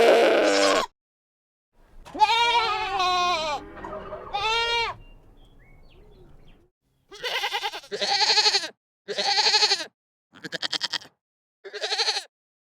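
Goats bleating. A harsh, noisy bleat cuts off just under a second in, then comes a long wavering bleat lasting a few seconds, then five short quavering bleats about a second apart.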